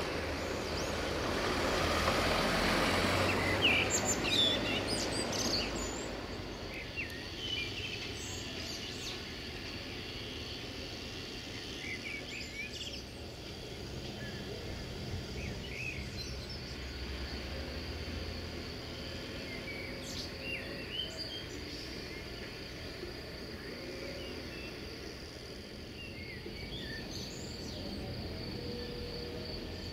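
A low rumble, the tail of a passing train, fades away over the first few seconds; then birds chirp now and then over a quiet outdoor background, and a steady high insect trill sets in about halfway through.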